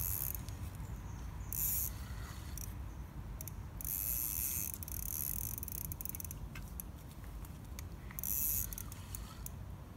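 A fishing reel's ratchet clicking in four short bursts as a big hooked carp is played.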